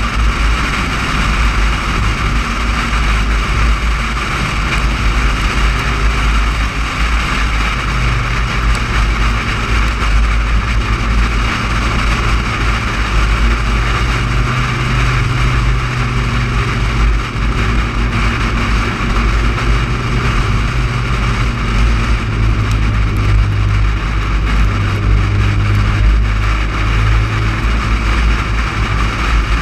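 Car driving at a steady cruising speed, heard from a camera on the outside of the car: a heavy wind rumble on the microphone and road noise, with the engine's steady hum coming up clearer about eight seconds in.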